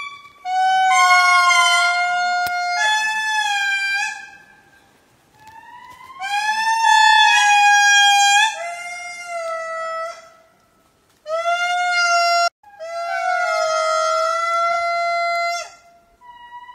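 A lemur calling: a series of long, high, held cries with slight rises and falls in pitch, in four or five bouts separated by short pauses.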